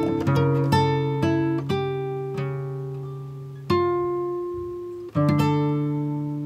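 Background music: a plucked acoustic guitar playing a slow run of notes, then two chords a second and a half apart, each ringing out and fading.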